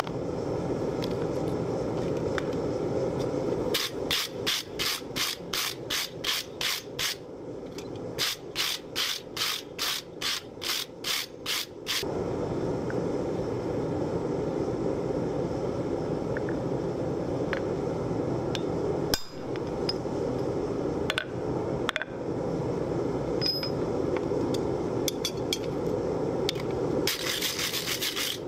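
Hand hammer striking the hot hook on the anvil, about three blows a second in two runs with a short pause between, over a steady low background noise. A few lone knocks follow, and near the end a wire brush scrubs the hook.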